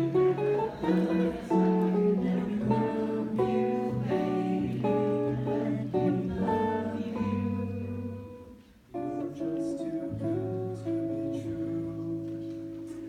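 Solo jazz guitar playing chords and single notes; the playing fades out about eight seconds in, then a new chord is struck and left ringing.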